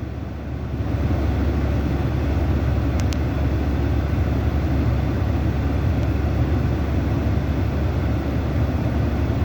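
Steady low rumble of a running vehicle, with no change through the pause, as heard from inside.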